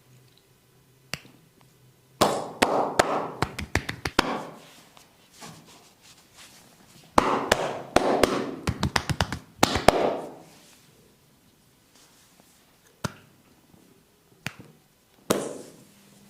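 Hands striking the body in quick percussive massage strokes, with tapping and chopping blows. Two runs of rapid strikes, each lasting two to three seconds, are followed by a few single sharp knocks.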